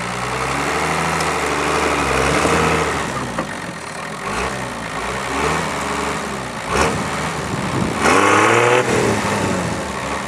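Heavily modified Suzuki Samurai off-roader's engine revving up and down in repeated surges under load as its front wheels push against a car's front end, trying to climb onto it. There is a sharp knock about two-thirds of the way through, and the hardest rev comes near the end.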